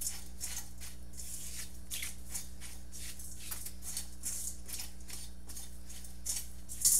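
Dry breadcrumbs toasting in a stainless steel skillet, stirred and scraped around the pan with a silicone spatula: a quick, scratchy rustle of about three strokes a second.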